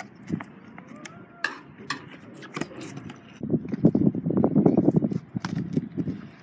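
Stunt scooter rolling over rough asphalt. The small wheels rumble, loudest for a couple of seconds past the middle, with a few sharp clacks earlier on.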